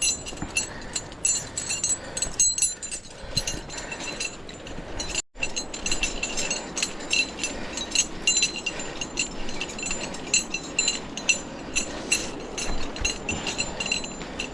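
Metal climbing hardware, carabiners and rappel gear, clinking and jingling together over and over at an uneven pace.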